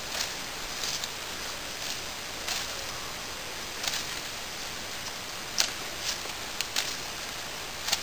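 Swiss Army knife scraping and shaving along a wooden stick in about ten short, irregular strokes, over a steady background hiss.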